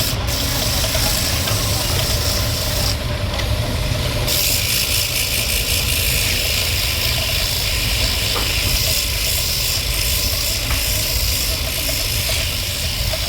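A power tool running steadily with a low hum while cutting wood for a bowl, making a high hiss that breaks off briefly about three seconds in and comes back fuller about a second later.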